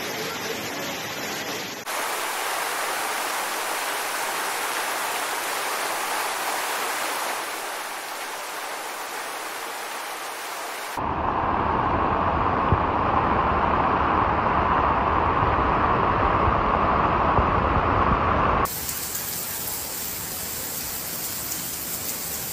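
Steady rushing of floodwater and heavy rain: a continuous hiss with no distinct events, its character changing abruptly about two seconds in, about eleven seconds in and again near the end. The louder, deeper stretch from about eleven seconds in is heaviest in the middle range.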